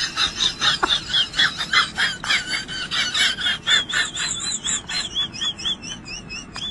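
Kitten mewing over and over in short, high-pitched cries, about three or four a second, which turn into a wavering trill in the second half.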